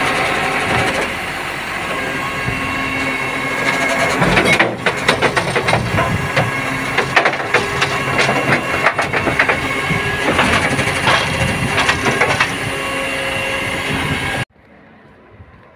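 Side-loader garbage truck's automated arm lifting a wheelie bin of food and garden organics, emptying it into the hopper and setting it back down: engine and hydraulics running with a steady whine, and a clatter of knocks and rattles through the middle as the bin is tipped. The sound cuts off suddenly near the end.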